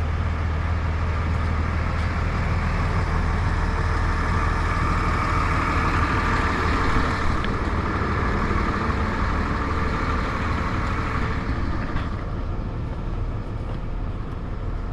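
Motor vehicle engine running steadily while driving, with road noise that swells in the middle and eases toward the end.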